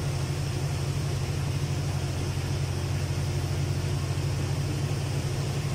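Steady low drone of running machinery, unchanging throughout.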